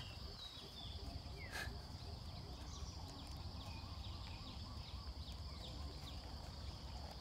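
Outdoor rural ambience: a steady high insect drone with a run of short, falling chirps, two or three a second. A single sharp click about one and a half seconds in comes from handling the mower's plastic engine parts.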